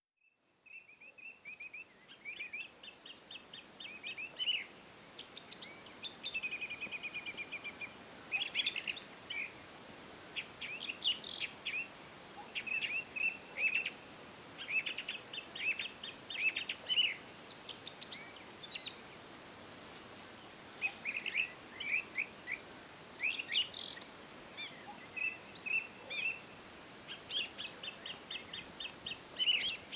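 Songbirds chirping and singing: quick runs of short repeated chirps and trills, one after another, over a steady faint outdoor hiss.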